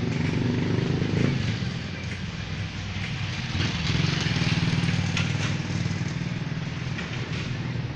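Street traffic, with a motor vehicle engine running steadily close by.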